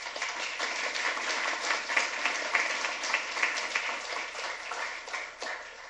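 Small audience clapping, a steady patter of many hands that fades away near the end.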